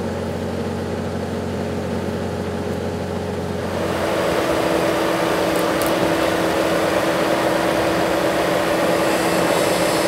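An engine idling steadily; about four seconds in, the sound changes to a Bobcat T190 skid-steer loader running, louder, with a steady whine over its engine.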